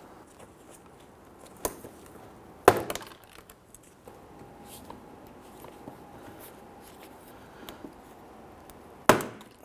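Sharp plastic clicks and snaps as push-type plastic retainer clips are pried out of a car's bumper and splash shield with a trim tool. There are two snaps in the first three seconds and another near the end, with faint handling ticks between them.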